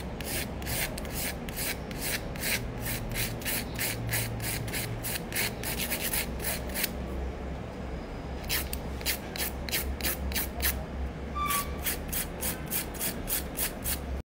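Hand nail file rasping back and forth over a gel nail extension, shaping its tip: quick regular strokes, about three a second, stopping for a second or so about halfway through.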